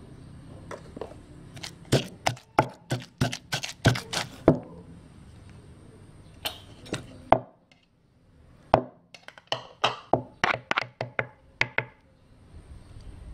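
Wooden pestle pounding a wet chili and shrimp paste in a mortar: quick knocks, about four a second, in two runs with a short pause in the middle.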